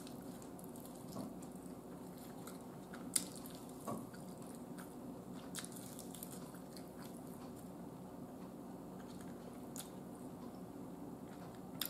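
Faint sounds of a person eating a fried chicken leg: biting and chewing, with a few soft crunches and clicks, over a low steady room hum.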